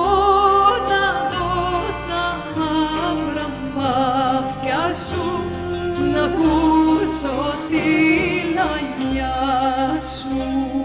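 A woman singing a Greek Cypriot folk song with vibrato, accompanied by viola, laouto and bass.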